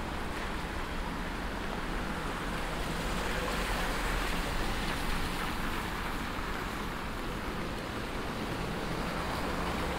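Steady rain falling on a city street, an even rushing hiss that swells slightly a few seconds in, with a low rumble beneath.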